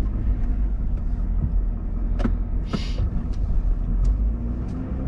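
Steady low road and engine rumble inside the cab of a pickup truck on the move. A few light clicks and a short hiss just before three seconds in.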